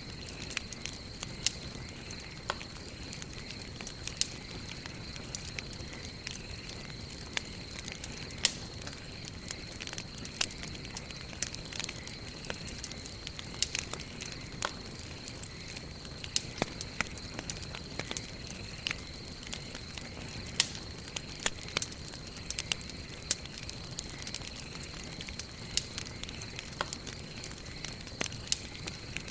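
Campfire burning, with frequent irregular crackles and sharp pops of burning wood over a steady soft hiss, and a steady high tone underneath.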